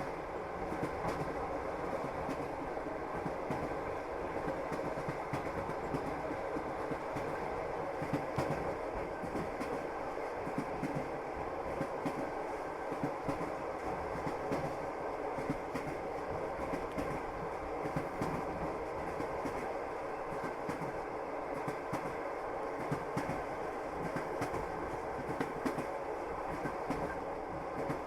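Passenger train heard from inside the carriage, running along the line: a steady rumble of wheels on rails with irregular clicks and clatter from the rail joints.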